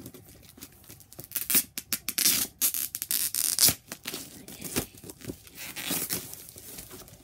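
Packaging being torn open by hand after a hole was poked in it with scissors: a run of irregular crackling rips, loudest from about one and a half to four seconds in, then smaller tears.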